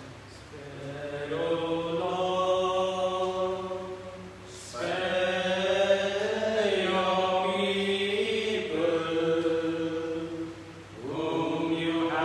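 Voices singing a slow, chant-like hymn in phrases of long held notes, with short breaks about four and a half and eleven seconds in.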